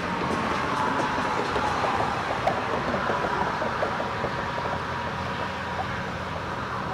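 Steady rumble and rush of a large motor yacht under way, its engines running and its wake churning past close by.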